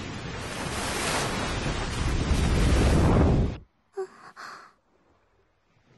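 Ocean waves rushing, growing louder, then cutting off abruptly about three and a half seconds in. A soft, short gasp follows.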